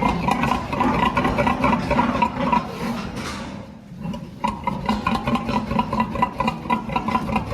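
Steady pig-barn din, a pulsing hum with rapid clicking and clatter, broken by a brief whooshing rush about three seconds in.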